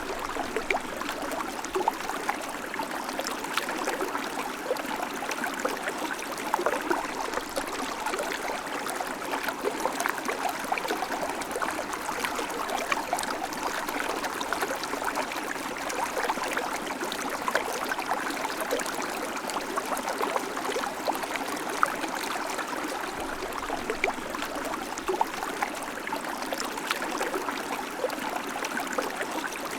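River water flowing steadily over rocks, a constant rushing babble with many small splashes and gurgles.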